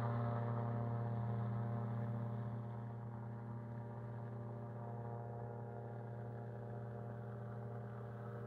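Stratus IIB microlight's engine, heard from the ground as a steady drone while the aircraft flies away after take-off. It fades over the first few seconds, then holds faint and even.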